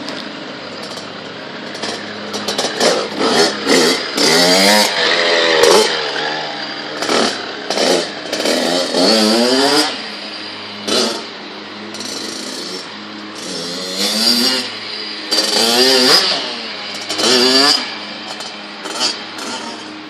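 Kawasaki KX65's small two-stroke single-cylinder engine revving as the dirt bike is ridden, its pitch climbing in rising whines and dropping again several times, growing louder and fainter as the bike comes and goes.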